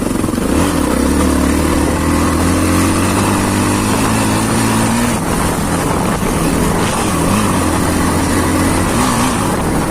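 Motor vehicle engine running steadily, close by. About five seconds in its pitch changes, and after that it wavers up and down as the engine speed varies.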